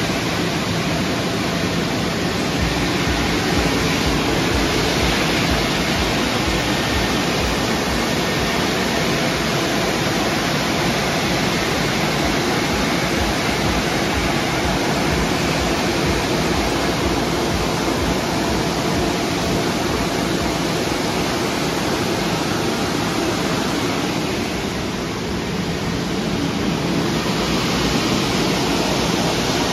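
Istobal M'Start rollover car wash running its brush wash: spinning brushes and water over a car, a loud, steady rush of noise.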